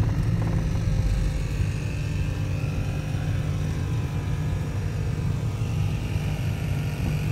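Car engine and road rumble heard from inside the cabin as the car moves slowly: a steady low rumble with a faint hum above it.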